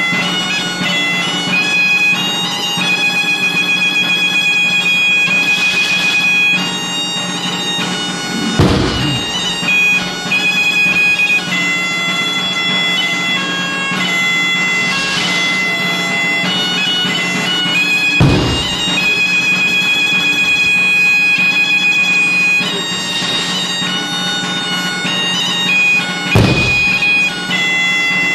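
Asturian bagpipe (gaita) playing a tune over its steady drone. Three loud low thumps come about nine seconds apart.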